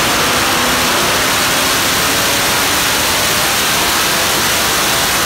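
GM LS3 6.2-litre aluminium V8 crate engine with long-tube headers running hard on an engine dyno with its stock camshaft. It is very loud and steady, recorded so hot that it comes through mostly as a dense, distorted roar.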